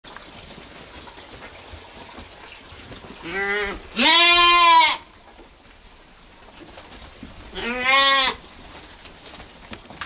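Lambs bleating: a short bleat about three seconds in, straight into a longer, louder one, then another bleat a few seconds later.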